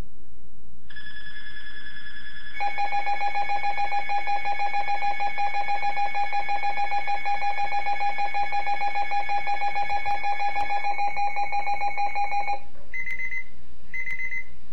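Alert-equipped weather radio sounding its alarm for a weather warning: a steady high tone, joined after a couple of seconds by a loud, rapidly pulsing lower tone for about ten seconds, then two short beeps.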